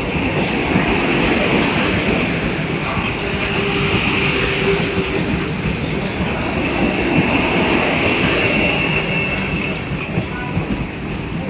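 Coaches of a Vande Bharat Express electric multiple-unit train passing close by: a loud, steady rumble and rush of wheels on rail, with a high ringing band over it and occasional clicks. The sound eases slightly near the end.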